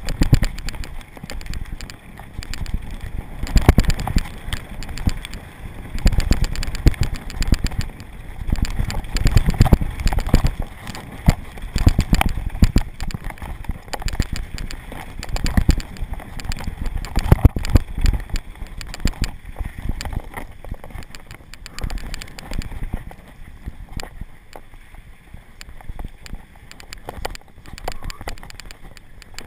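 Downhill mountain bike riding fast down a dry dirt trail: tyres running over dirt with a constant clatter of rattles and knocks from the bike over bumps, and wind rumbling on the microphone. It eases off somewhat in the last few seconds.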